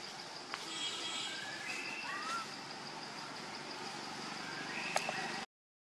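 Outdoor ambience among trees: a steady high-pitched drone with a few short chirping calls, some rising and falling in pitch. The sound cuts off abruptly near the end.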